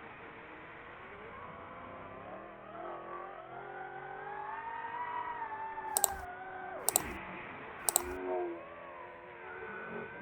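Racing drone's electric motors and propellers whining, the pitch rising slowly to a peak and falling again as the throttle changes. Three sharp clicks about a second apart come past the middle.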